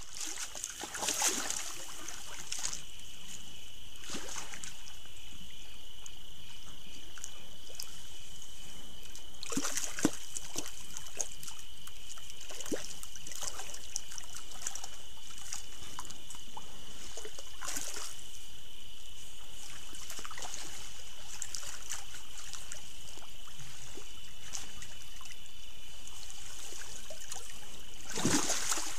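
Water sloshing and splashing as a black bear wades and wallows in a small pool, with several sharper splashes among gentler sloshing, over a steady high-pitched tone.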